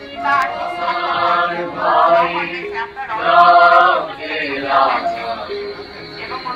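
Music with chanting voices: short sung phrases that hold and slide between notes over steady low held notes.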